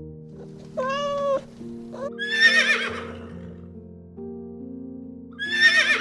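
A kitten meows once about a second in. A horse then whinnies twice, a wavering high call at about two seconds and again near the end, and the whinnies are the loudest sounds. Background music plays throughout.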